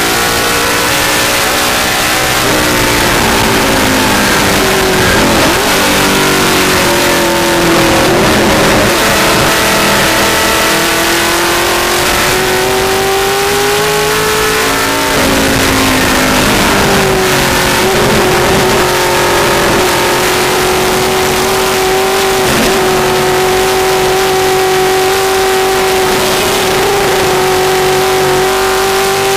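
Vintage Mustang race car's V8 engine at racing speed, heard from inside the car. The pitch climbs and dips with throttle and gear changes through the first half, shifts sharply about halfway, then holds fairly steady with a slight rise near the end.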